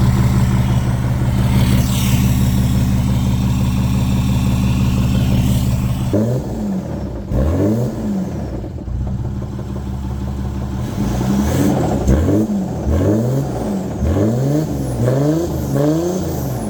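Nissan Navara D40's V6 diesel with a hybrid turbo and 3-inch stainless exhaust, running on freshly rebuilt big-end bearings. It runs steadily for about six seconds, then is revved up and down over and over, the blips coming closer together near the end.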